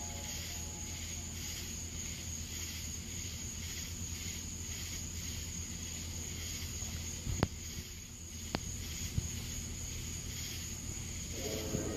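Outdoor ambience: a steady high insect buzz that swells and fades about twice a second over a low hum, with two sharp clicks a little past halfway. Near the end, a low humming tone with several pitches starts up, the kind of strange trumpet-like sound in the sky that this recording was made to capture.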